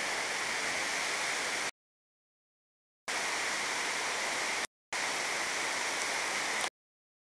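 Steady rushing of a waterfall, cut off abruptly into dead silence three times: for over a second starting about a second and a half in, for a moment near the middle, and again near the end.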